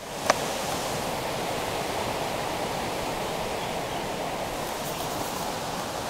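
Steady outdoor background hiss, with one short crackle of the picture book's paper pages being handled near the start.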